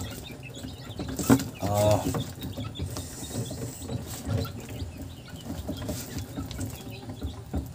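Newly hatched chicks peeping in a brooder box, many small high chirps scattered throughout, with a sharp knock of handling about a second in.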